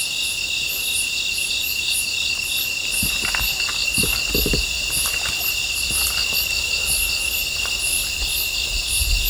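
Crickets and other night insects chirping steadily in a chorus, with a high pulsing chirp repeating a couple of times a second. A few faint soft knocks or rustles come about three to four and a half seconds in.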